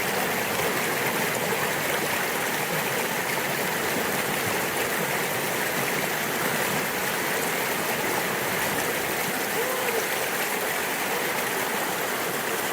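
Running water of a creek, a steady rushing sound that holds even throughout.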